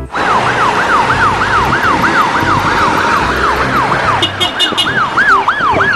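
Ambulance siren wailing in rapid up-and-down sweeps, about three a second, over street traffic noise; a higher, second tone joins briefly about four seconds in.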